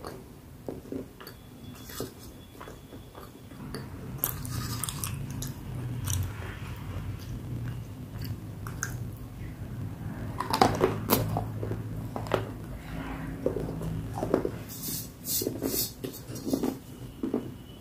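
Ice cubes being bitten and crunched between the teeth: a run of sharp cracks and chewing crunches, loudest in two spells about ten and fifteen seconds in.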